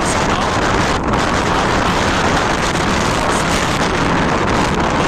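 Loud, steady noise of steam power plant machinery, an even hiss-like din across all pitches with no distinct tones or rhythm.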